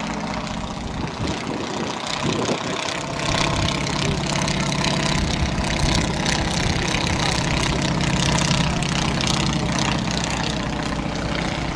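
Vintage light propeller aircraft engine running steadily, getting louder about three seconds in.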